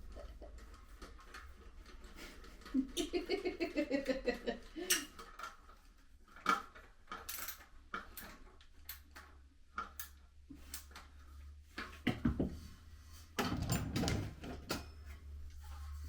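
Metal parts and small fixings of a flat-pack barbecue clinking and clattering as they are handled and fitted during assembly, a scatter of short knocks and clicks.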